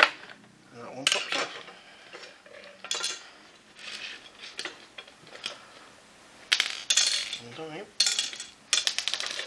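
Small screws and plastic vacuum parts clinking and rattling as they are handled and set down, in several short bursts with the densest clatter near the end.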